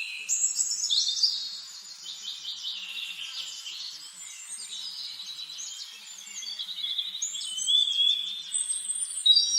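Several songbirds singing at once in a continuous, overlapping chorus of high whistles, trills and quick chirps, louder about a second in and again near the end.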